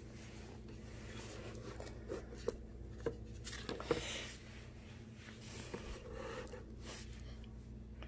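Pages of a hardcover picture book being turned and handled: faint paper rustles and light taps, busiest between about two and four seconds in and again near the end, over a low steady hum.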